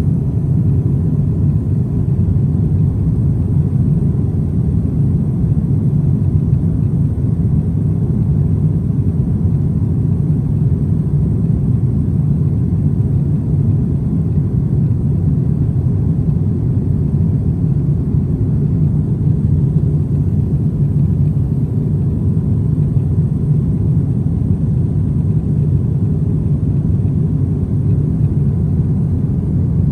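Steady low rumble of an airliner cabin in flight: engine and airflow noise heard from inside the aircraft.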